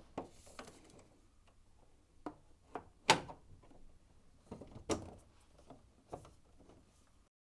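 Knocks and clicks of a tumble dryer's control panel being handled and pushed back into place, about eight in all, the loudest about three seconds in.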